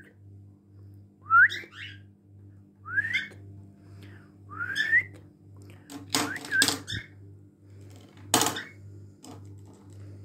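Cockatiel giving short rising whistled calls, three of them about a second and a half apart, then harsher, noisier calls about six seconds in and one loud harsh burst a little after eight seconds. A faint steady pulsing hum runs underneath.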